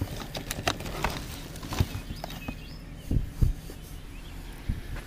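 Scattered clicks and knocks of scrap and odds and ends being handled and moved, with two heavier thumps about three seconds in.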